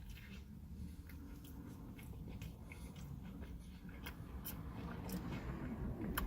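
Chewing a crispy chicken sandwich: quiet mouth noises and small crunches, scattered clicks over a low hum of room noise.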